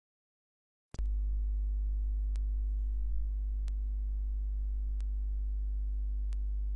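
Dead silence, then about a second in a loud, steady low electrical hum switches on abruptly, with faint regular clicks about every 1.3 seconds.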